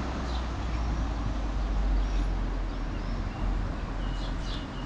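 Wind buffeting the microphone outdoors on a mountain trail, a steady low rumble with hiss, with a few faint bird chirps over it.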